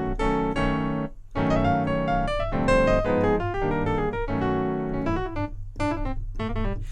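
Yamaha Montage M synthesizer playing the gospel sound pack's 'Piano 1' acoustic piano patch: full chords, with a brief break about a second in and sparser strikes near the end.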